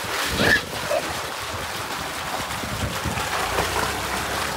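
Steady rush of water pouring from a pipe into a shallow pool, with splashing as a child wades and kicks through it.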